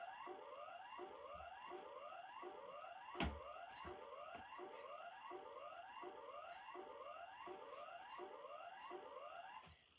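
Japanese J-Alert civil-protection warning siren: a rising sweep repeated nearly twice a second, played back over speakers, stopping just before the end. One sharp click about three seconds in.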